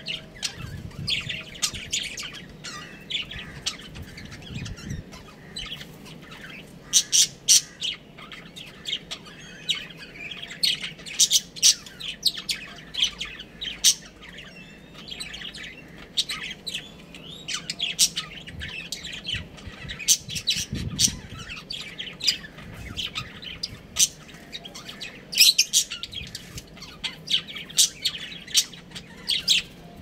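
Budgerigars chirping and chattering continuously: many short, sharp high chirps with occasional louder squawks.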